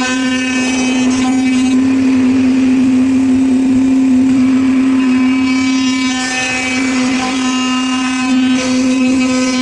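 5-axis CNC machine running: a steady, constant-pitch spindle whine with a stack of overtones, over a rushing noise that dies down a couple of seconds in and swells again near the end.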